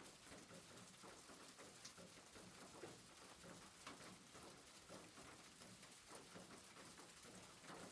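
Faint rain pattering on a rooftop: irregular drops tapping several times a second over a soft steady hiss.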